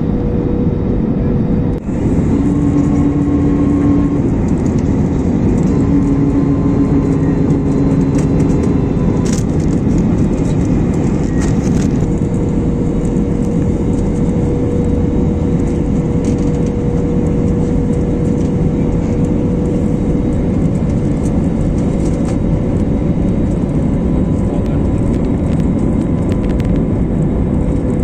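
Jet airliner cabin noise beside the wing on approach: a steady roar of engines and airflow with a steady engine hum running through it. Two brief low tones sound a few seconds in.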